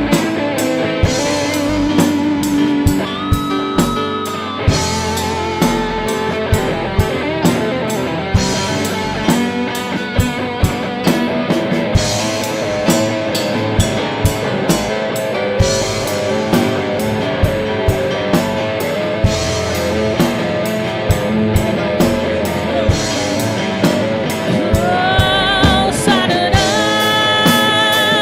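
Band music with a steady drum beat and guitar; a singing voice with vibrato comes in near the end.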